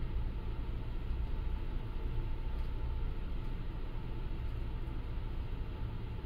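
Steady low rumble of a car ferry's engines under way, with a faint constant whine above it.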